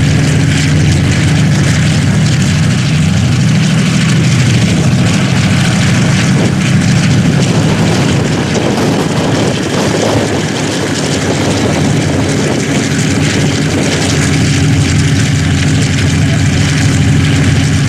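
Boeing B-29 Superfortress's Wright R-3350 radial engines running at low power on the ground, a loud, steady propeller drone that dips slightly about halfway through.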